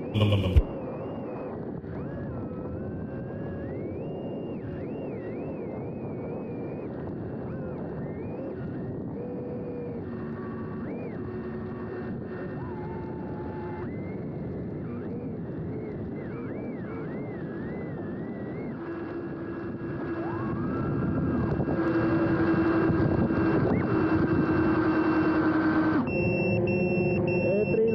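The small brushless motors and propellers of a mini RC hovercraft (Mamba 1105 5500kv motors, Gemfan props) whine as it drives, the pitch rising and falling with the throttle, getting louder about two-thirds of the way in. There is a brief loud knock just after the start, and a repeating high electronic beep begins near the end.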